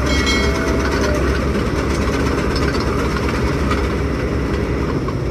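Preet 949T combine harvester's diesel engine and machinery running steadily at close range: a heavy, even rumble with a busy mechanical clatter over it.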